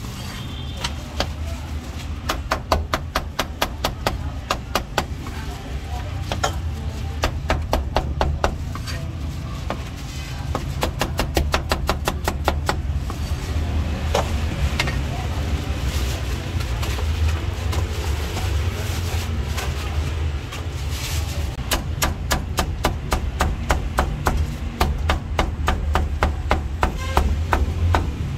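Meat cleaver chopping roast and braised pork on a round wooden chopping block: fast runs of sharp knocks, several a second, sparser through the middle stretch. A steady low rumble lies underneath.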